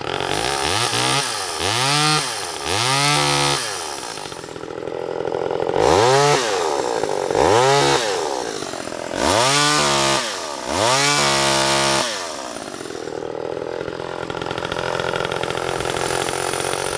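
Vintage Homelite Super EZ Automatic two-stroke chainsaw running without cutting. It idles and is revved up and back down seven times: three quick blips in the first few seconds, then four longer revs around the middle, before settling back to idle.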